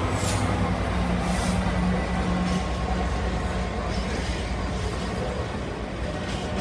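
Steady rumble of train noise as a Class 66 diesel freight locomotive approaches, its two-stroke V12 engine running, with a low hum strongest in the first couple of seconds.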